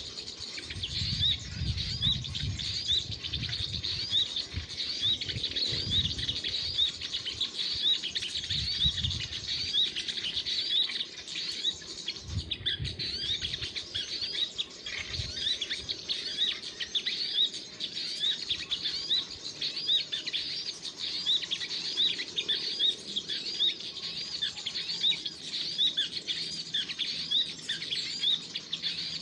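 Small birds chirping: a fast, unbroken run of short, high chirps, with low bumps during the first ten seconds or so.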